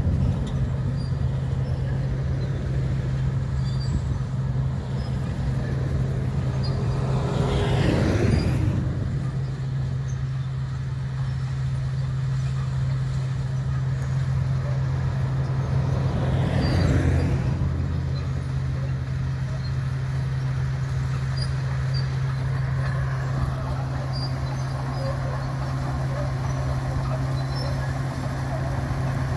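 Komatsu D61 bulldozer's diesel engine running steadily with a low drone, swelling louder twice for a second or two.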